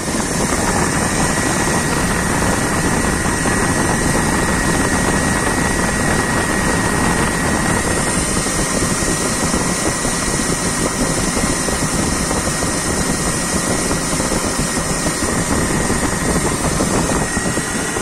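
BMW M52TU straight-six engine idling steadily, heard close up in the engine bay, with a steady high whine running through it.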